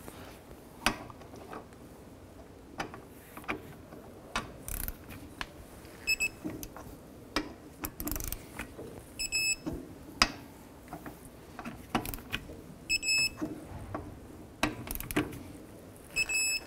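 Electronic torque wrench beeping as each wheel lug nut reaches its set torque: four short, high-pitched beeps a few seconds apart. Between them come sharp ratchet clicks and metal knocks as the socket is moved onto the next lug nut.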